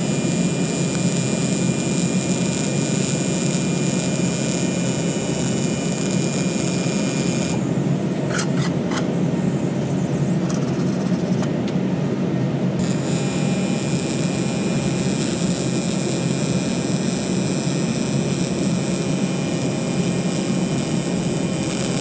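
TIG welding arc buzzing steadily on cast aluminum as a fillet weld is run with hand-fed 4043 filler rod. The arc stops about seven and a half seconds in and restarts about five seconds later.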